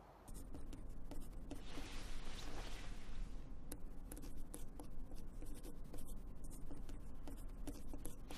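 Pencil writing on paper in quick, scratchy strokes with many small taps.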